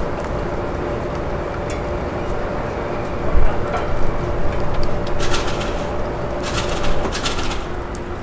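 Diesel locomotive idling with a steady hum, with a few short bursts of hiss over it in the second half.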